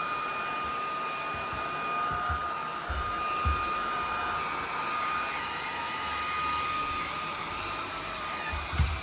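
Vacuum cleaner running steadily, a rushing of air with a high motor whine held at one pitch, and a few soft low bumps.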